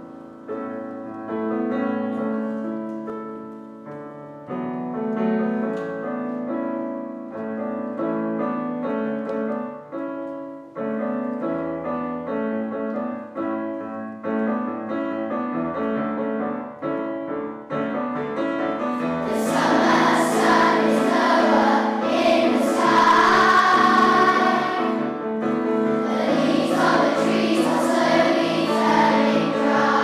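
A piano plays an introduction, and about two-thirds of the way in a large choir of primary-school children comes in singing a harvest song, with the piano accompanying.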